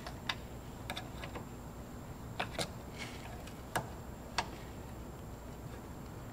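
Irregular light metallic clicks and taps, about eight of them, from a bent steel pick working at the inner end of a new rubber power steering rack boot where it seats on the rack housing. A steady low hum runs underneath.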